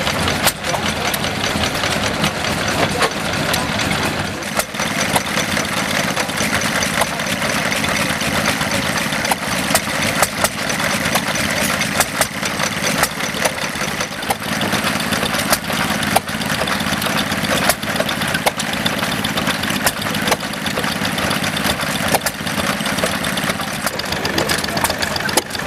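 Vintage single-cylinder stationary engines running, first a Tangye horizontal engine and then a small hopper-cooled engine on an iron-wheeled truck. The steady running noise is cut by a sharp firing knock every second or two.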